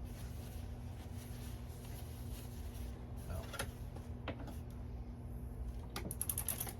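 A few light clicks of clothes hangers being moved on a closet rod, then a quick rattle of clicks near the end, over a steady low hum.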